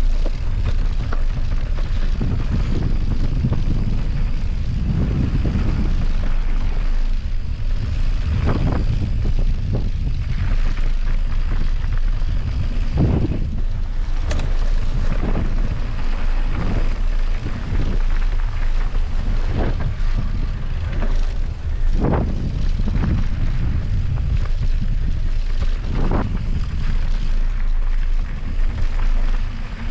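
Wind buffeting the microphone of a camera on a mountain bike in motion, a steady low rumble, with scattered knocks and clatters from the bike running over rough trail.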